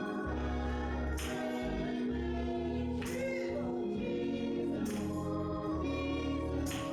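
Church choir singing a gospel song over instrumental accompaniment, with sustained chords, a changing bass line and a sharp hit about every two seconds.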